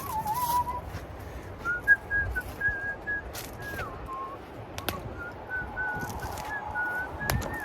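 A person whistling a tune: a string of short held notes with slides between them.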